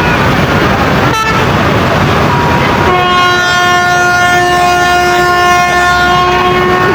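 Tour bus's basuri horn sounding one long held blast of several notes at once, starting about three seconds in over loud traffic noise.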